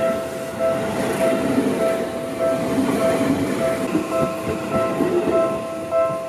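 Level-crossing warning bell ringing in a steady, evenly repeating two-tone chime, about one and a half strikes a second, over the rumble and wheel clatter of a commuter train passing close by.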